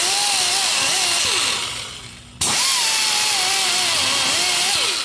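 Cordless drill running twice, each time for about two and a half seconds, with a hissing scrub as it works against the engine. The motor's pitch wavers under load and falls away as it slows at the end of each run.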